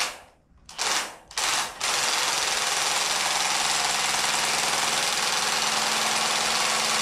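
Cordless impact wrench hammering on the forcing screw of a three-jaw puller, pulling the harmonic balancer off a Chevy 283 V8's crankshaft: a few short bursts, then one unbroken run of about five seconds.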